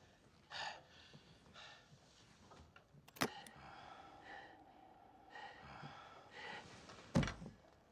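Quiet clicking of a lock being picked on the clasp of a leather-bound book, with one sharp click about three seconds in. A dull knock near the end.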